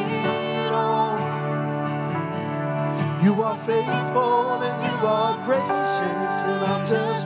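Live contemporary worship song: vocalists singing into microphones over keyboard accompaniment.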